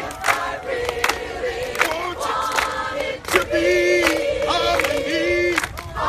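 A group of adults singing together as a choir while clapping a steady beat in unison, about one clap every three-quarters of a second, with some notes held for half a second or more.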